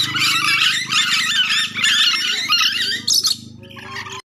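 Nuri dora (ornate lorikeets) chattering in a dense run of rapid, high-pitched calls that thins out about three seconds in, over a low steady hum. The sound cuts off abruptly at the end.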